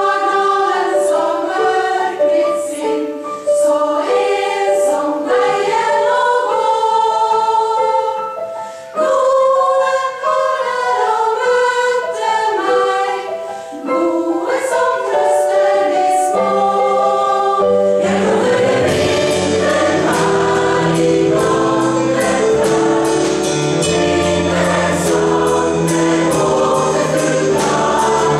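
Mixed choir singing a slow song in harmony to keyboard accompaniment. About two-thirds of the way through, bass and drums come in and the music grows fuller.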